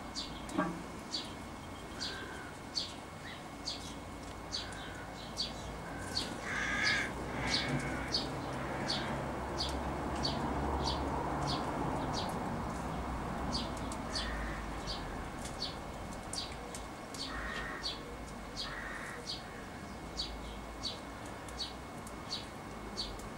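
Sparrow chirping steadily, short high chirps about two a second, with a few louder, lower, harsher calls from another bird, the first about seven seconds in.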